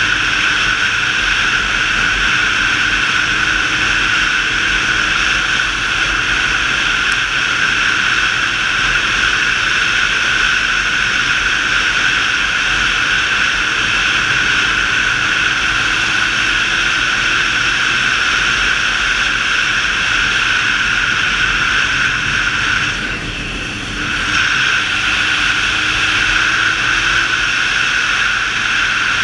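Motorcycle riding at speed, heard from a bike-mounted camera: a steady rush of wind over the microphone, with the engine's hum underneath slowly climbing in pitch. About three-quarters of the way through, the sound briefly drops for about a second.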